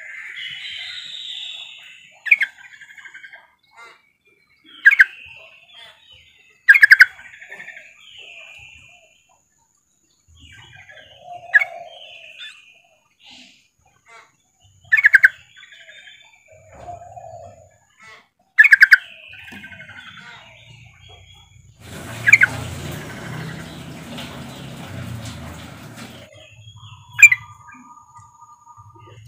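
Yellow-vented bulbul (trucukan) giving loud, short call notes, eight in all, each trailing into a brief chatter; the uploader presents them as a female calling to males. A few seconds of rushing noise follow the seventh note.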